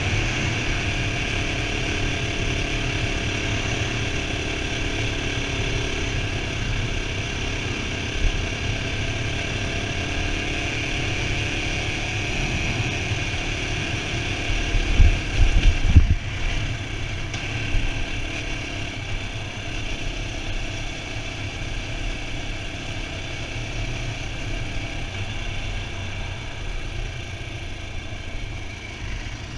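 A CSC RX3 Cyclone's 250 cc single-cylinder engine running at a steady cruise, heard from a helmet chin mount with wind noise over it. A short cluster of knocks comes about halfway through, and the engine eases slightly after them.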